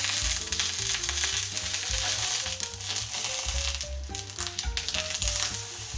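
Chocolate pancake batter sizzling in a generous layer of foaming butter in a non-stick frying pan, with a plastic spatula scraping under the pancake to lift it for the flip. The butter and heat are high enough that the pancake comes out burnt. Soft background music plays underneath.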